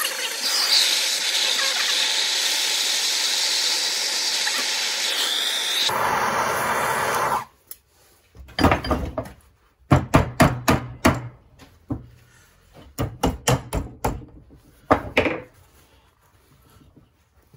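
Handheld gas torch hissing steadily as its flame heats the aluminum engine case, shut off about seven seconds in. Then a run of irregular metal knocks and clicks as the tappet block is worked loose from the flathead engine's case.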